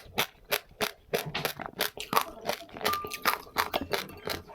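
Crunchy seeds being chewed: quick, irregular crisp cracks and clicks, several a second, as the seeds break between the teeth.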